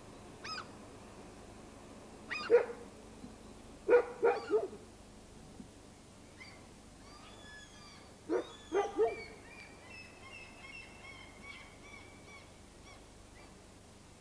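A dog barking in short bursts: single barks, then three quick barks about four seconds in and three more about eight seconds in. Birds chirp in the background through the second half.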